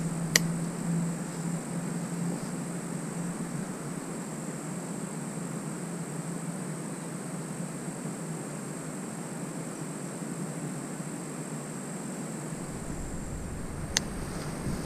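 Steady outdoor background hiss with a faint high steady whine. Two sharp clicks break it, one about half a second in and one near the end.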